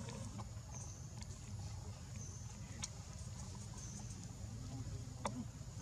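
Insects calling: a short, high buzzing chirp repeating about every second and a half over a steady low rumble, with a couple of sharp clicks, the louder one about five seconds in.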